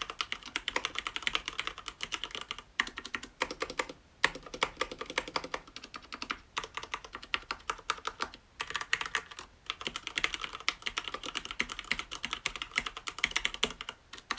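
Fast typing on a Hansung GK993B SKY tenkeyless mechanical keyboard with Cherry MX Red linear switches: rapid runs of key clacks, broken by a few short pauses.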